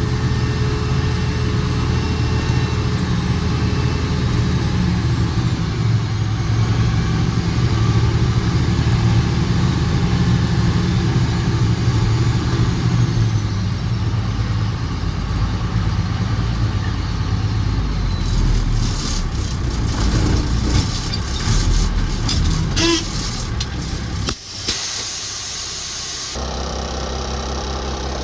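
Heavy diesel engine running steadily, with a stretch of rattling and knocks about two-thirds of the way through. The sound drops out briefly near the end, then a steady engine hum carries on.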